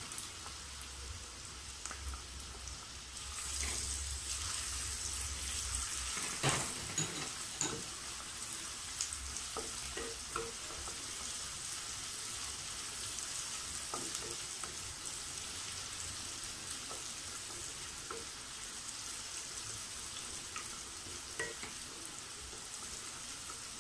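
Chopped ginger and green chillies sizzling in hot oil in a kadai, stirred with a wooden spatula that clicks and scrapes against the pan now and then. The sizzle grows louder a few seconds in.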